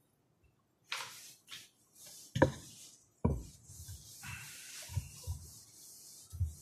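Whiteboard eraser wiped across a whiteboard: a steady scrubbing hiss with dull knocks at the strokes, after a sharp knock about two and a half seconds in and a thud just after.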